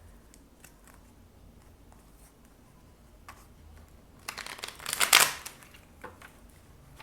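Tarot cards being shuffled: a few faint card clicks, then a quick loud riffle of cards about four seconds in, lasting about a second.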